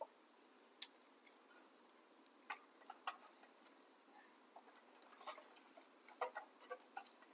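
Sparse light clicks and taps of metal tongs against snail shells and the wire rack of a small tabletop grill as the snails are turned, over near silence; the clicks come closer together near the end.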